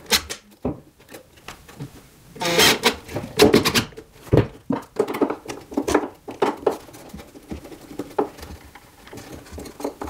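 Scattered clicks, taps and scraping of hand tools working a screw out of a wooden floor joist, with a denser run of knocks a few seconds in.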